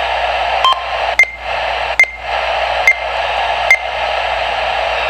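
H-555 handheld UHF transceiver hissing with receiver static through its small speaker, with five short key beeps about a second apart as its buttons are pressed.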